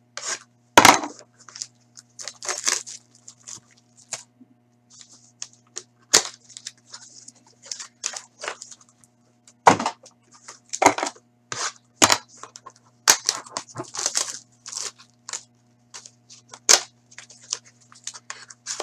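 Plastic shrink-wrap being torn and crinkled off sealed Panini Select hockey card boxes, with the boxes handled and set down: irregular crackles, rustles and sharp snaps. A steady low hum sits underneath.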